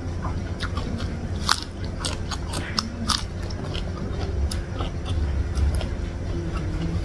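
Close-miked crunchy chewing of a raw green vegetable: a run of sharp crunches, thick in the first three seconds, thinning to softer chewing after.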